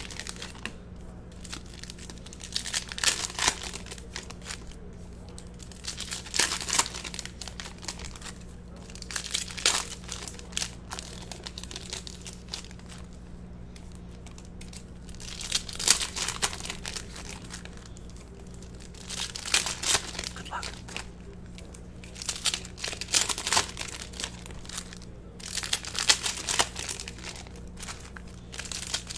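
Foil trading-card pack wrappers being torn open and crinkled, in short bursts every few seconds, over a steady low hum.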